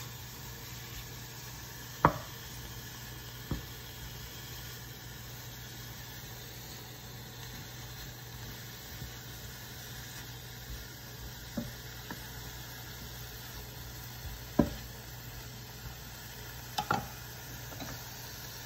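A wooden utensil stirring vegetables in a non-stick frying pan, with about six sharp knocks against the pan, the loudest about two seconds in and about two thirds of the way through, over a steady low background hiss.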